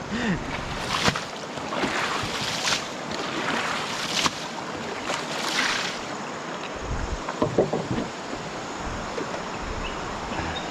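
Splashing, rushing water with wind noise on the microphone, swelling in several surges during the first half.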